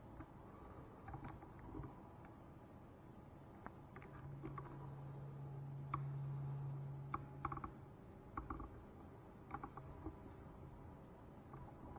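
Faint handling noise from fingers gripping and shifting the recording phone: scattered light clicks and taps against the case, with a steady low hum for a few seconds in the middle.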